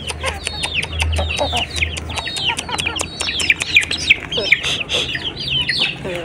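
A flock of free-range village chickens: young chicks peeping without pause in quick, falling chirps, several a second, mixed with lower clucking calls.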